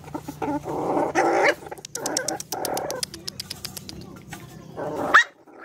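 Several dogs eating together from a steel bowl, growling at one another over the food, with rapid clicks of lapping and chewing. A brief high cry rises sharply about five seconds in.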